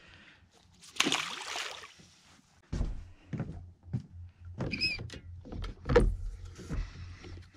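A splash about a second in as a small dogfish is dropped back into the sea. Then a run of knocks and clunks, with a short squeak near the middle, as a fishing rod is handled in its holder on the boat's rail.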